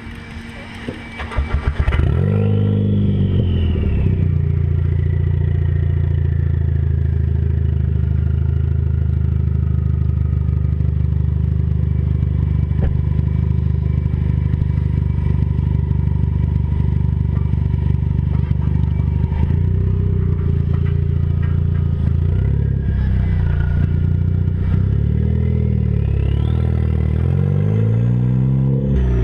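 Ford Focus ST turbocharged engine, with a stock turbo and a catless 3-inch downpipe, starting about two seconds in and settling to an idle. A turbo whistle rises with the first rev and then slowly falls while it idles; near the end the revs rise again and the whistle climbs high.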